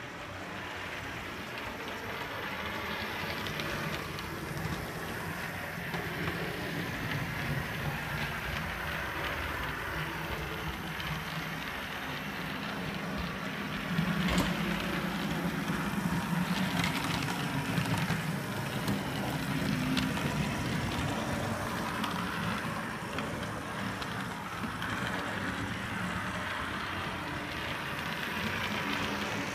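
Model camel-type steam locomotive running along its track, a steady whirring of its electric motor and wheels on the rails, louder from about halfway in after a sharp click.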